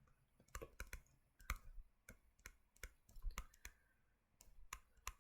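Faint, irregular clicks, a dozen or so scattered through the pause with a short lull near the end.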